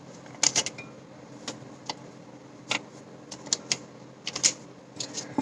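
A utensil clicking and scraping against a bowl while a slime mixture is stirred: a string of irregular light clicks, bunched around half a second in and again between about three and four and a half seconds in.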